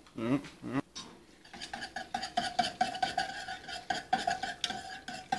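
Wire whisk beating against the inside of a stainless steel saucepan, whisking a milk and cheese sauce. It starts about a second and a half in: rapid clinks, roughly four or five a second, with the pot ringing under each stroke.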